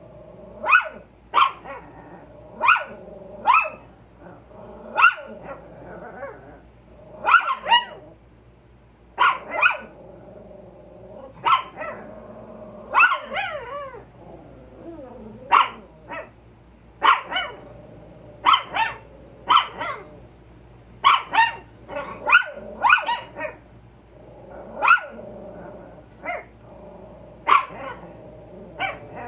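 Two chihuahuas alert-barking at a squirrel outside: short, high, sharp barks at irregular intervals, about one a second and often in quick pairs.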